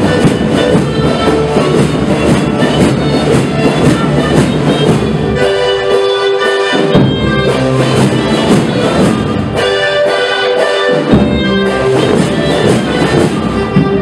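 Marching brass band with sousaphones playing traditional street music with a steady beat. Twice the bass drops out for about a second while the higher horns hold steady notes.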